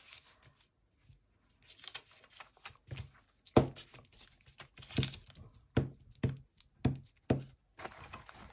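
Papers being handled and rubbed over with a glue stick: soft rustling at first, then from a few seconds in a run of short scraping strokes, about two a second.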